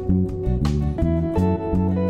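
Background music led by guitar over a stepping bass line, with two drum strikes.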